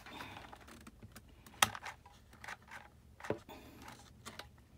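Light clicks, taps and faint paper rustling from hands working a pleated paper rosette and a hot glue gun on a tabletop, with two sharper knocks about a second and a half and three seconds in.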